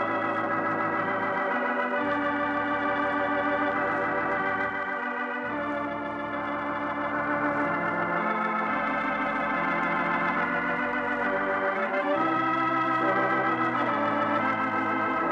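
Organ playing slow, held chords with a slight wavering vibrato, the chords changing every one to three seconds. This is the closing music of a 1950 radio program transcription.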